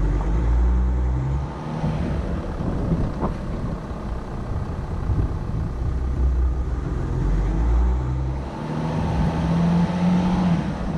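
Volkswagen Amarok pickup being driven, its engine running with a low rumble that swells and fades, and a steadier pitched engine note near the end. A single short click about three seconds in.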